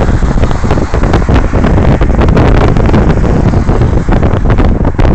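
Wind rushing and buffeting hard on the microphone from a moving car, a loud rough roar with irregular gusty thumps, over the car's road noise.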